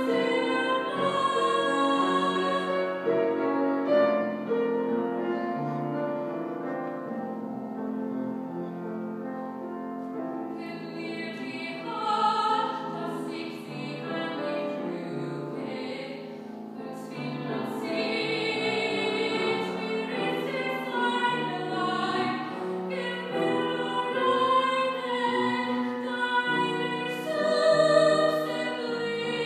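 A woman singing a German art song in trained classical style, with vibrato on the held notes, accompanied by a grand piano.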